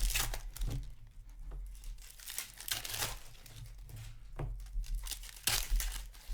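Trading card pack wrappers being torn open and crinkled by hand, in repeated irregular rips and crackles.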